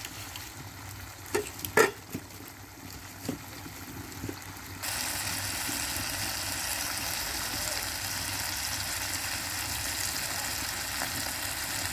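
Spiced mutton sizzling in a wok over a wood fire as it is fried down. A few sharp knocks in the first couple of seconds, then about five seconds in a steady, loud sizzle starts suddenly and keeps going.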